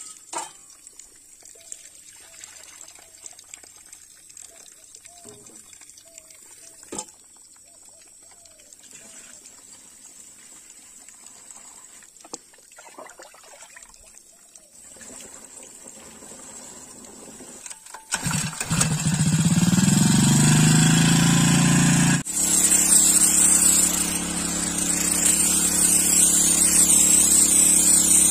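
Faint handling noises and a steady high whine for about 18 seconds, then a small motor starts, its pitch rising over about two seconds. From about 22 seconds in it runs steadily and loudly with a strong hiss on top.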